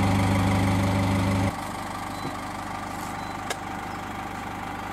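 GAZ Sobol 4x4 van's engine idling steadily, loud and close for about the first second and a half, then suddenly quieter and more distant. A single faint click comes about three and a half seconds in.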